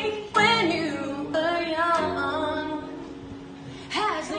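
Live acoustic song: a woman singing over an acoustic guitar. Her voice drops out briefly about three seconds in and the next phrase starts near the end.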